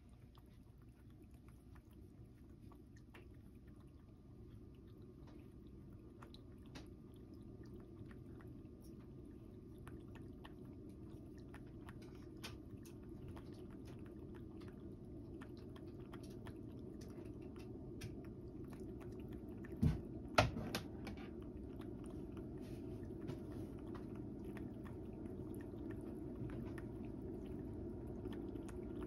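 A cat lapping water from a bowl: a long run of small clicks, with two louder knocks a little past the middle.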